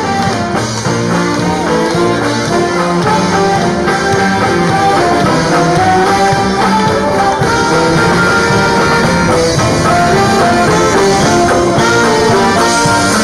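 A marching Mummers-style string band playing a tune, saxophones carrying the melody over strummed banjos.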